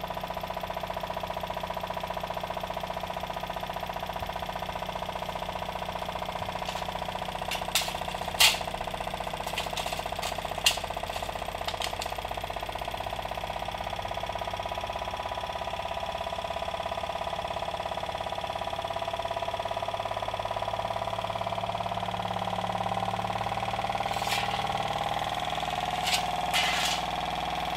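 Homemade tin-can Stirling engine with a PVC displacer cylinder running steadily: a fast, even mechanical rhythm over a steady hum, with a few sharp clicks about eight and ten seconds in and again near the end. It is gathering speed as it warms up.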